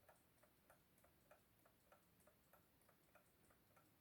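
Soviet mechanical alarm clock ticking faintly, with quick, even ticks about four to five a second: the clock is running.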